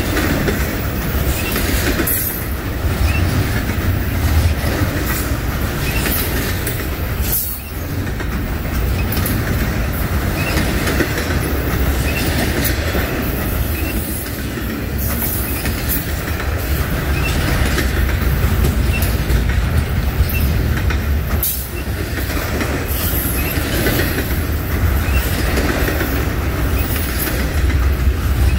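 Double-stack intermodal freight train rolling past close by: a steady low rumble with the clatter of well-car wheels over the rails.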